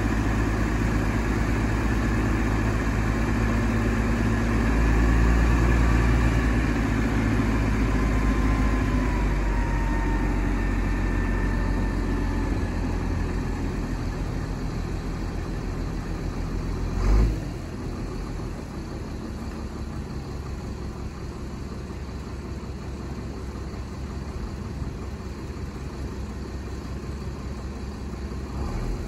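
A 1982 International S-Series grain truck's engine idling and running the hydraulic hoist as the grain box tips up, with a faint whine over the engine in the first half. About two-thirds of the way in comes a single clunk, and the engine runs quieter after it.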